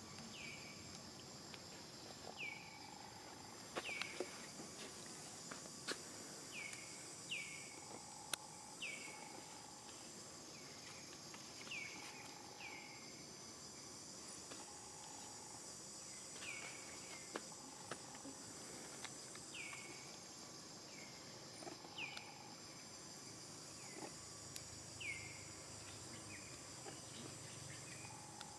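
Insects, crickets or cicadas, keep up a steady high drone. Over it, short chirps that fall quickly in pitch repeat every second or two, with an occasional faint click.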